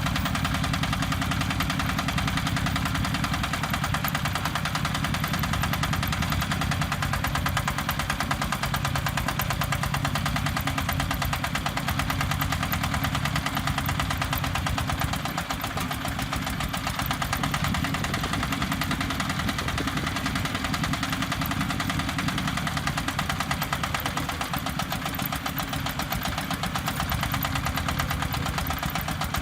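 Engine of a self-loading concrete mixer running steadily with an even low pulse, dipping briefly about halfway through.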